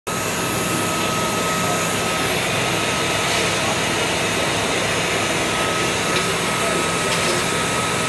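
Briquette-fired steam boiler plant running: a steady whooshing machine noise of the boiler's air blower and furnace, with a thin steady whine in it.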